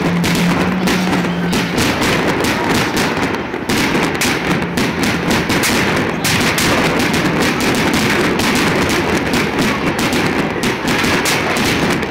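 Live rock band playing, loud and distorted through a phone's microphone, with a dense, irregular run of sharp cracks and bangs throughout.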